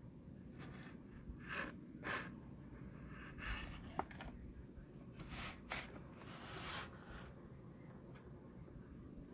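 Faint handling noise of Hot Wheels cardboard-and-plastic blister cards being picked up and moved: several soft rustles and one sharp click about four seconds in.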